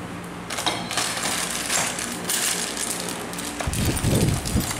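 Handling noise from unpacking a Honda GX35 engine unit and its plastic parts: scattered light clicks, clinks and rustles, with a louder low bumping rumble about four seconds in as the engine housing is moved.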